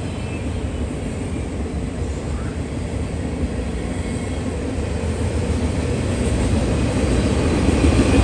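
Long mainline freight train rolling past, a steady rumble of its cars' wheels on the rails that grows gradually louder toward the end.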